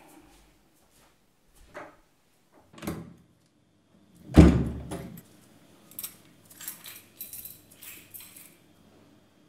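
An interior door shutting with a heavy thud about four seconds in, after two softer knocks; then a set of keys jingling lightly in short rattles for a few seconds.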